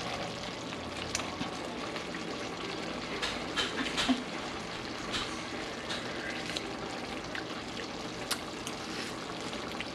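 Igado stew simmering in an open steel pot on the stove, a steady bubbling hiss, with a few faint clicks as broth is spooned out and sipped.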